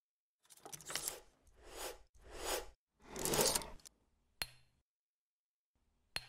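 Logo-animation sound effects: four quick whooshes in the first four seconds, then two sharp clicks with a brief high ring, about four and a half and six seconds in.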